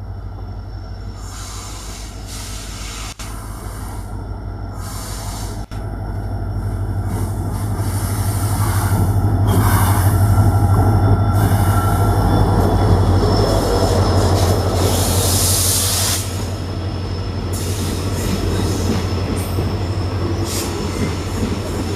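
EMD diesel locomotive hauling an express into the platform: a steady low engine drone that grows louder to a peak about halfway through, then eases, with the coaches' wheels rolling and squealing on the rails.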